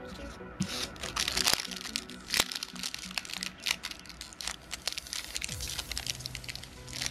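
Yu-Gi-Oh! booster pack's foil wrapper crinkling and tearing as it is worked open, a pack that is hard to open, with quick sharp crackles throughout.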